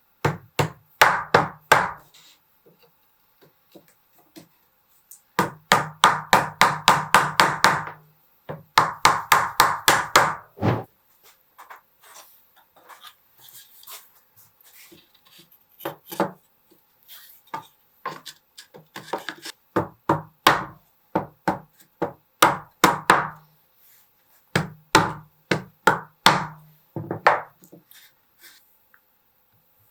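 Hammer blows on wooden kit parts, in quick runs of sharp knocks about five a second with short pauses between runs, as pieces are tapped together during assembly.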